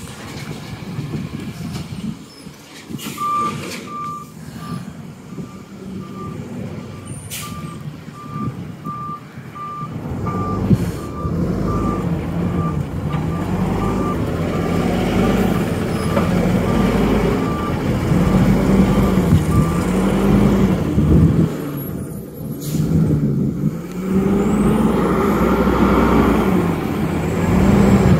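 Natural-gas garbage truck reversing and then pulling away close by. A steady series of high back-up alarm beeps starts a few seconds in and stops about two-thirds of the way through. From about a third of the way in, the truck's engine grows louder, its pitch rising and falling as the truck drives past.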